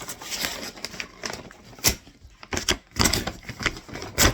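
A parcel being opened by hand: rustling packaging with scattered sharp clicks and knocks, the sharpest about two seconds in and near the end.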